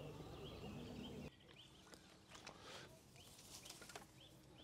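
Near silence outdoors, with faint short chirps from a small bird repeating every half second to a second. The background noise drops abruptly about a second in.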